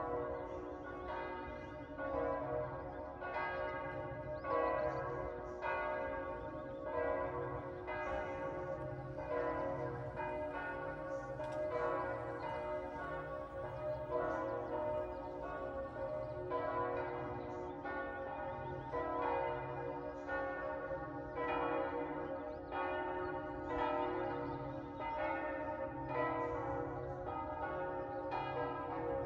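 Church bells ringing, struck about once a second, each stroke ringing on and overlapping the next.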